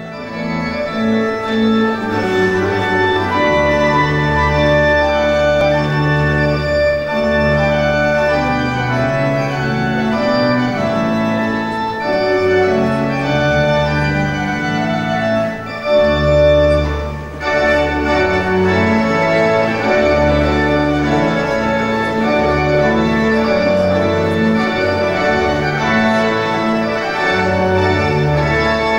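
Organ music: slow, held chords over deep bass notes, with a melody line above, briefly thinning about seventeen seconds in.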